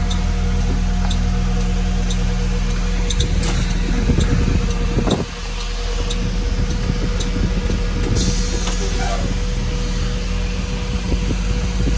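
A 2022 Blue Bird Vision school bus's engine idling steadily, with a faint click about once a second.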